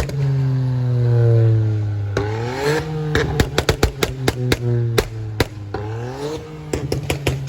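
A car engine being revved, its pitch rising quickly and sinking back slowly, twice over. Between the revs comes a rapid run of sharp pops and cracks, thickest in the middle.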